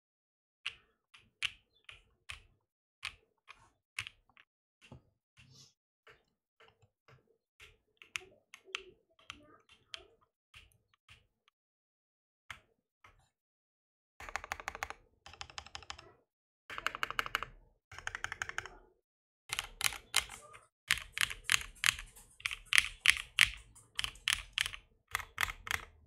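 Keystrokes on a Mode SixtyFive mechanical keyboard with lubed, filmed Husky Pie switches, a POM half plate and PBT keycaps. For the first dozen seconds the keys are pressed one at a time, about two a second. From about fourteen seconds in, the typing turns into fast, louder bursts that run on to the end.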